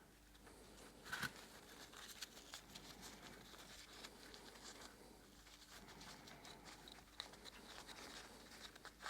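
Near silence with faint, scattered clicks and rustles of small parts being handled, including one slightly louder click about a second in.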